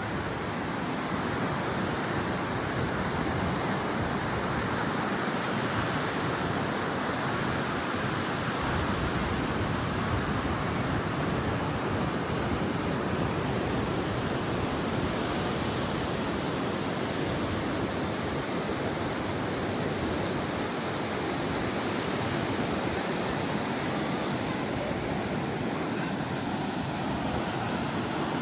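Steady rushing wash of surf on a sandy beach, an even noise with no single wave standing out.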